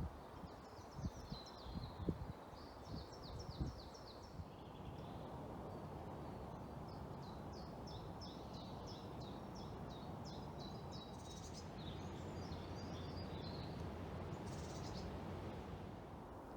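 Strong wind in woodland, heard as a low rumble with wind crackle on the microphone in the first few seconds, while a small songbird sings repeated quick, high chirping phrases over it.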